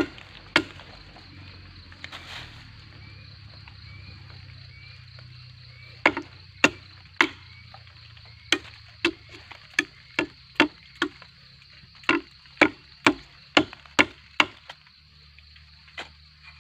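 A blade chopping into a gombong bamboo culm to get at the water held inside it. Each strike is a sharp knock with a short ringing tail. Two strikes come at the start, then after a pause a quick run of about fifteen at roughly two a second, and one last strike near the end.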